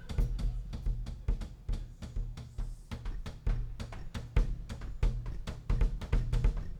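Music with a heavy drum beat and deep bass, played for a sound-system test.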